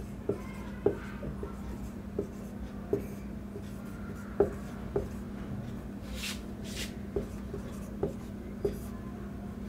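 Marker pen writing on a whiteboard: irregular light taps as the tip meets the board, with two longer scratchy strokes about six seconds in, over a steady low hum.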